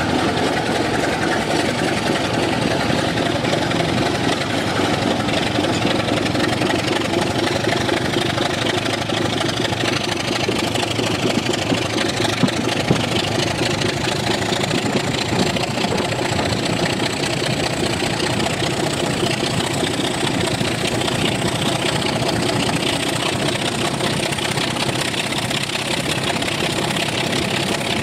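Class 24 diesel locomotive's Sulzer six-cylinder engine working steadily under load, heard from an open carriage window just behind it, mixed with steady wheel and rail noise. A few sharp clicks come about halfway through, and a faint high whistle slowly rises through the second half.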